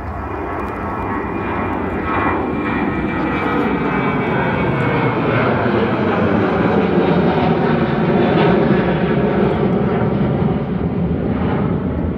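Boeing 737-800's CFM56-7B turbofan engines at takeoff thrust as the jet climbs out, a loud rumbling jet noise that grows louder over the first couple of seconds and then holds, with a faint high whine in the first half.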